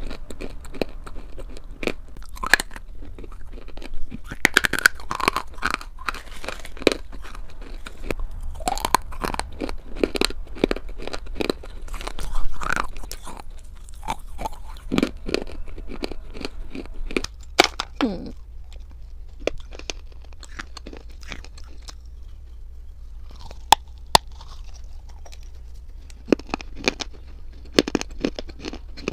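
Dry clay crunching and being chewed right at a clip-on microphone: a dense run of sharp crunches, thinning out in the later middle and picking up again near the end.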